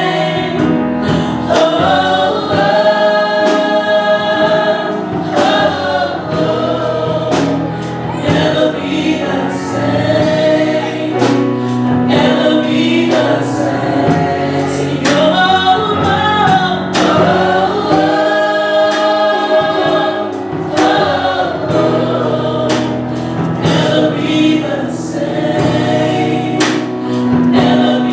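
Gospel choir singing, with long held chords over a steady beat.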